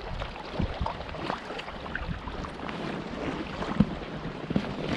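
Water lapping and small irregular knocks around an inflatable packraft, with wind on the microphone and one sharper knock near the end.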